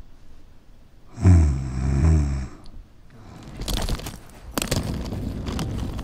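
A person's loud, drawn-out snore, followed a second later by a run of knocks and scraping as a heavy bag is hauled along.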